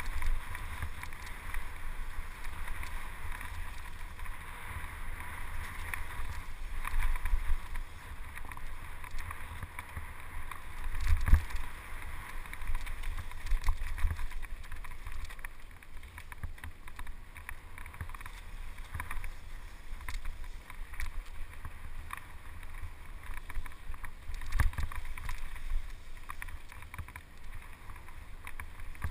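Mountain bike rolling fast over a dirt trail: steady tyre rush and wind buffeting the microphone, with heavier jolts from bumps about 11 seconds in and again near 25 seconds.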